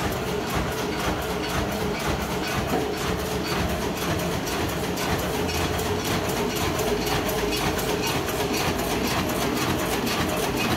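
Automatic spiral notebook hole-punching machine (APM320) running, a steady mechanical clatter of punch strokes in a fast, even rhythm over a constant machine hum.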